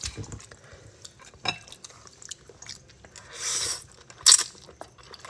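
Close-up eating sounds of spaghetti with seafood: small clicks of chopsticks against a bowl and chewing, then a hissing slurp of noodles about three and a half seconds in, ending in a short loud suck.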